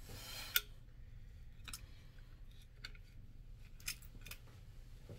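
Small metal clicks and ticks of a bolt and hex key being worked into a Trek Madone Gen 6 seatpost's saddle clamp, about five sharp clicks spread a second or so apart after a brief rustle at the start.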